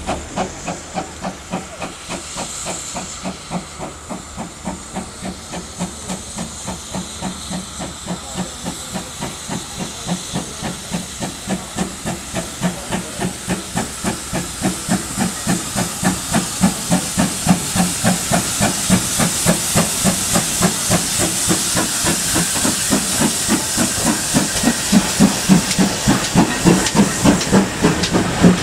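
GWR Large Prairie 2-6-2 tank locomotive no. 5199 working a train, its two-cylinder exhaust beating evenly at about three beats a second over a hiss of steam. The beats grow steadily louder as the engine draws near and runs past.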